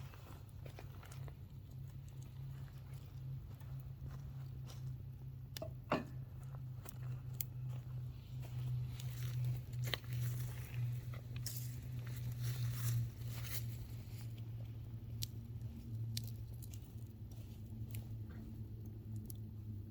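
Wood campfire crackling, with irregular pops and snaps and a louder pop about six seconds in, over a low steady hum.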